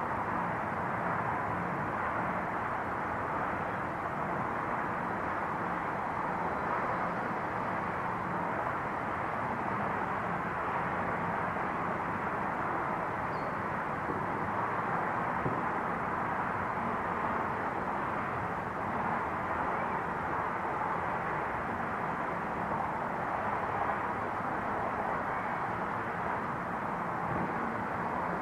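Steady outdoor neighborhood ambience: an even, unbroken background roar with no separate events standing out.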